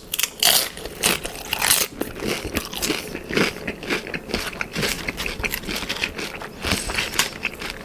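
Close-up eating sounds of a person biting and chewing Doritos nachos, with irregular crisp crunches of the tortilla chips. The sharpest crunches come about half a second in and just before two seconds in.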